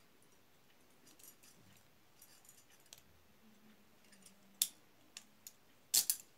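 Metal handcuffs clicking and rattling faintly as a piece of wire is worked in the lock to pick it open, with a few sharp clicks in the second half, the loudest about six seconds in.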